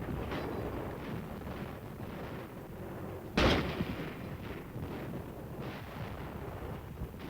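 Gunfire on an old film soundtrack: scattered shots over a low, continuous rumble, with one loud, sharp shot about three and a half seconds in.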